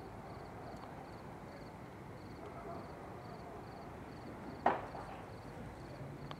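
Steady low background hiss, broken about three-quarters of the way through by a single sharp knock with a brief ringing tail.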